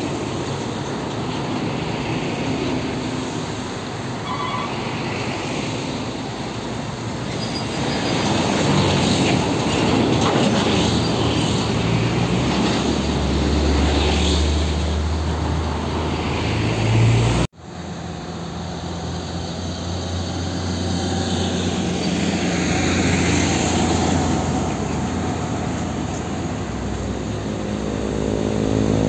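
Heavy diesel trucks and a bus passing close by one after another, engines running and tyres on the road. It grows loudest about halfway through with a deep engine drone, then cuts out for an instant. Near the end an engine climbs in pitch as a truck accelerates.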